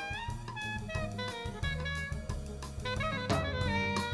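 Live jazz ensemble playing: drum kit and bass keeping time under saxophone lines, with keyboard and electric guitar.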